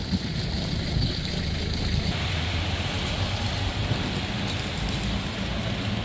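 Street traffic noise: a steady low rumble of engines with a hiss over it, the hiss growing brighter about two seconds in.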